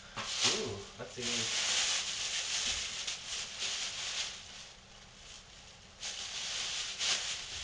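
Thin plastic shopping bag rustling and crinkling as hands rummage through it, in two stretches with a quieter lull just after the middle.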